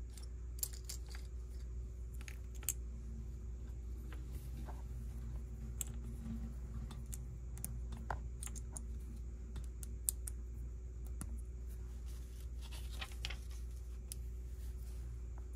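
Plastic Lego pieces clicking and rattling as they are handled and pressed together, in scattered small clicks, over a steady low hum.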